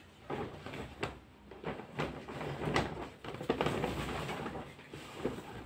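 Large plastic Primark shopping bags rustling and crinkling irregularly as clothes are rummaged through and pulled out of them.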